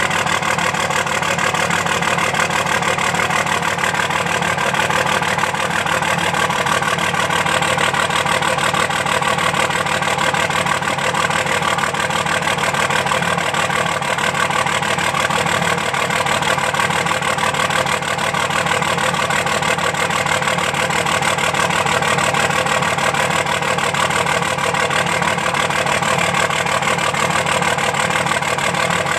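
2005 Dodge Ram 2500's 5.9-litre Cummins inline-six turbodiesel idling steadily with one injector not firing, so one cylinder is dead.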